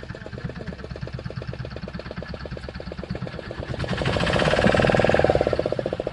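Fishing boat's engine running with a fast, even knock, swelling louder for a couple of seconds about four seconds in.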